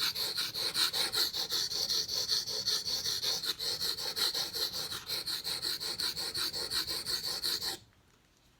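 Steel blade of a ZT knife stroked quickly back and forth on a King whetstone, a rasping scrape in quick, even strokes through the stone's slurry. It stops suddenly near the end.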